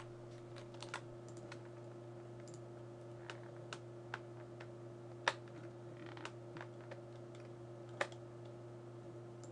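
Occasional computer keyboard key presses and mouse clicks, sparse and irregular, the sharpest about five seconds in and again near eight seconds, over a steady low hum.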